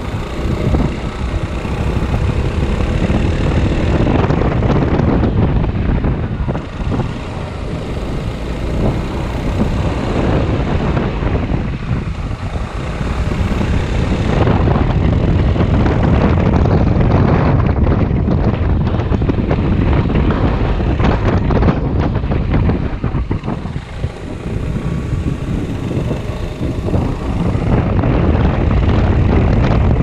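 Maxi-scooter engine running under throttle, with heavy wind noise on the rider-mounted microphone, as the scooter climbs a mountain road from about 20 to 40 km/h. The loudness dips briefly a few times.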